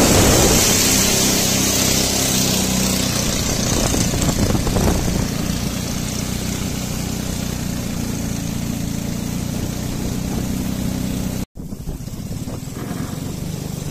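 Small motorboat's engine running steadily under way, with wind and water rushing past. The sound drops out for an instant a little after eleven seconds in, then the engine carries on a little quieter.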